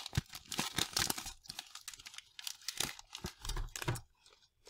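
Plastic wrapper of a Quest Peanut Butter Cups pack being torn open and crinkled by hand, in quick irregular crackles, with a dull bump about three and a half seconds in. The crinkling stops about four seconds in.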